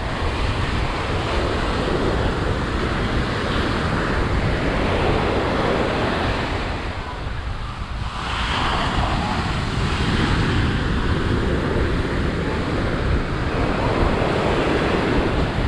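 Ocean surf breaking and washing up the beach in swells, easing off shortly before the middle and surging again just after, with wind rumbling on the microphone.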